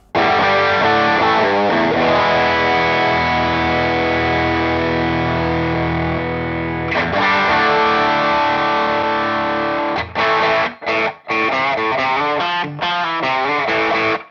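Electric guitar played through the Gokko Pazuzu Hardcore Overdrive pedal, a distorted tone. A chord is struck and left ringing for about seven seconds, then a second chord is held, and near the end short choppy chords are cut off sharply between strokes by the pedal's gate.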